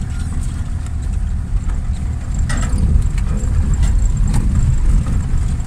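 Lada Niva 4x4 driving along a rough dirt track, heard from inside the cabin: a steady low engine and road rumble, with a few sharp knocks and rattles, the clearest about two and a half and four and a half seconds in.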